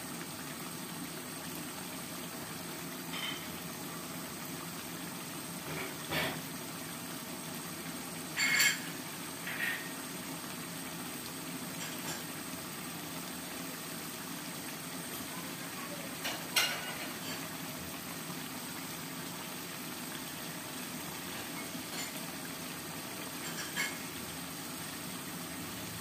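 Chili sambal simmering in a wok on a gas flame: a steady hiss, with a short sharp pop or tick now and then, about six times.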